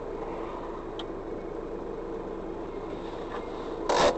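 Car engine and road noise heard from inside the cabin while driving, a steady hum. Just before the end there is a short, loud burst of noise.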